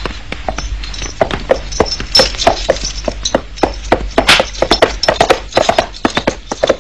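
Horses' hooves clattering: a quick, irregular run of knocks, several a second.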